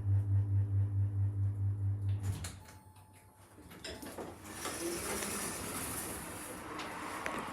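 Passenger lift running with a loud low hum that pulses about three times a second, stopping about two seconds in as the car halts. A click follows, then the doors slide open and a broad hiss of background noise rises.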